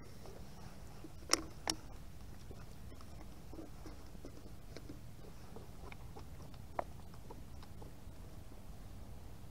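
A wooden stick stirring plaster of Paris in a cut-off plastic jug: soft scraping and small clicks against the plastic, with two sharp knocks a little over a second in and another near the end, over a steady low rumble.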